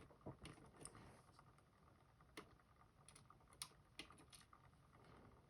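Near silence broken by scattered faint clicks and taps of tiny lock pins and springs being handled on a work surface.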